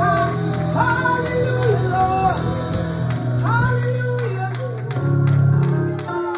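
Church worship band music: a sung melody over sustained bass and guitar chords, with light percussion hits coming in near the end.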